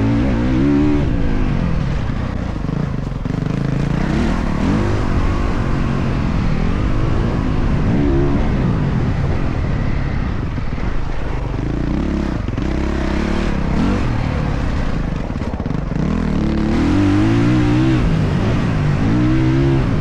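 Motocross dirt bike engine under hard riding, its pitch climbing and dropping again and again as the throttle is opened and shut through the laps, over a steady low rumble.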